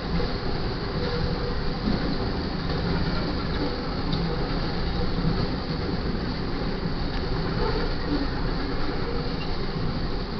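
Double-stack intermodal freight train rolling past: steady wheel-on-rail noise from the loaded container cars going by.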